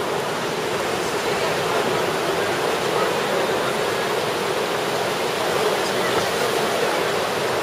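Steady wash of ocean surf breaking on the beach, with a low murmur of people's voices mixed in.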